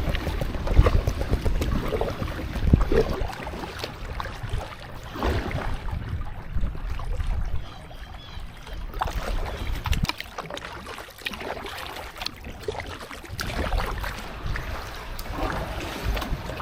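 Kayak paddle strokes in water, with irregular splashing and dripping every few seconds, over wind rumbling on the microphone.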